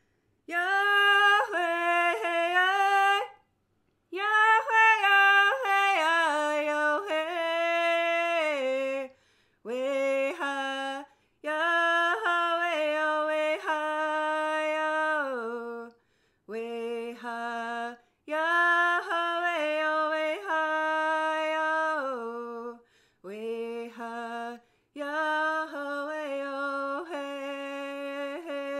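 A woman singing unaccompanied in the Hidatsa language, in a run of about eight phrases whose pitch steps down and falls away at the end of each, with short breaks between them.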